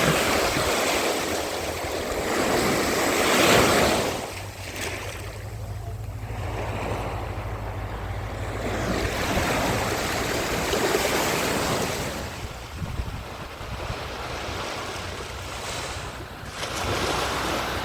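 Ocean waves washing in and out on a beach, swelling and fading several times, with wind buffeting the microphone as a low rumble.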